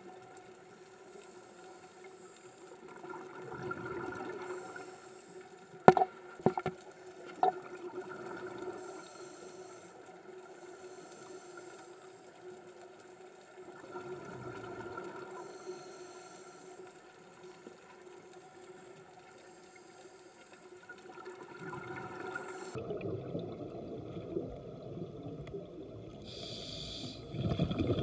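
Underwater sound near a scuba diver: a steady low hum with soft gurgling swells of exhaled bubbles every several seconds, and three sharp knocks about six to seven and a half seconds in. Near the end it changes to a louder, rougher water noise.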